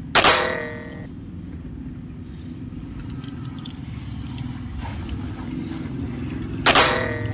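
Two loud metallic clangs, one just after the start and one near the end, each ringing briefly and dying away, with a few faint plastic clicks in between from batteries being fitted into a toy train's battery compartment.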